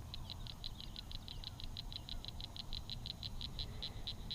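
A spin-the-wheel roulette ticking as it spins, about six light ticks a second, slowing gradually toward the end as the wheel winds down to pick the next lure.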